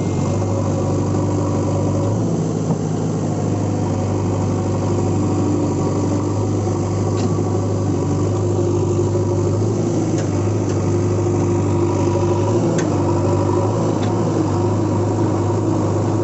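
Engine of heavy earth-moving machinery, such as a backhoe loader, excavator or dump truck, running steadily at idle with a low, even hum and a few faint ticks.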